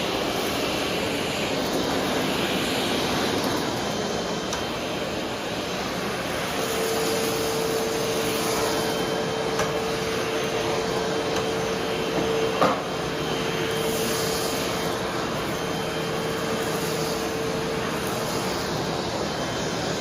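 Vacuum cleaner running steadily on the floor. About a third of the way in, a steady hum note joins the rushing noise and holds until near the end, with a single sharp click a little past the middle.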